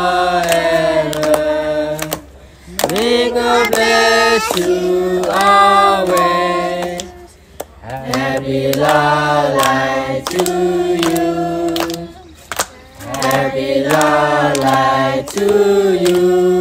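A group of women singing a birthday song together in a non-English language, in long held phrases of about five seconds with short breaks between, with hands clapping along.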